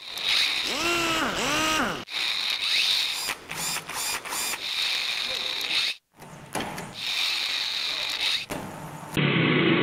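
Mechanical ratcheting and clicking with a few quick rising-and-falling whirs, broken by a short gap about six seconds in. Near the end a steady motorcycle engine idling sound cuts in.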